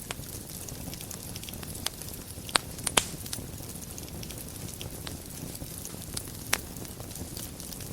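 Wood fire burning in a fireplace: a steady low rumble of flames with scattered small crackles and a few sharp pops, the loudest two about two and a half and three seconds in.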